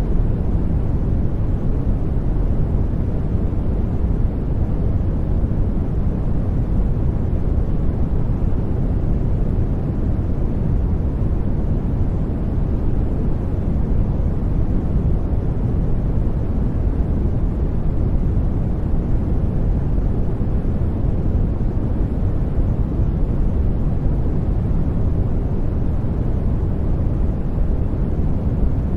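Continuous noise played as a study background: a steady, deep rushing hiss, heaviest in the low end and thinning toward the top, with no change in level or pattern.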